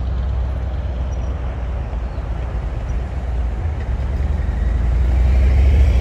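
2021 Harley-Davidson Road Glide Special's V-twin engine rumbling as the motorcycle circles at low speed, growing louder near the end as it heads back toward the microphone.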